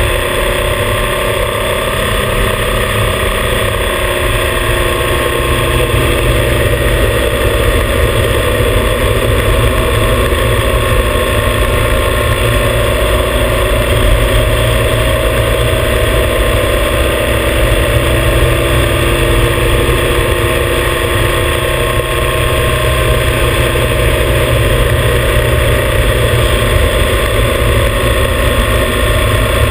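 Motorcycle engine running at a steady cruising speed, its pitch drifting only slightly, under steady wind and road noise.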